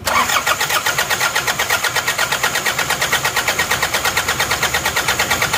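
Isuzu Panther 2.3 indirect-injection diesel engine turned over on its starter motor for a compression test, its glow plug out of cylinder 2, with a steady, even chug of about six beats a second. The engine does not catch. The even cranking goes with healthy compression: the gauge reads nearly 30 bar.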